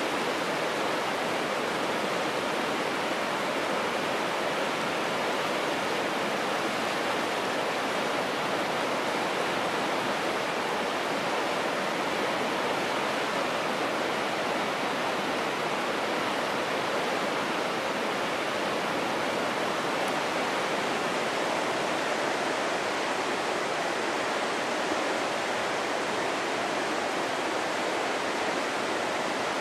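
Steady, even rush of fast-flowing water from a stream running below a waterfall.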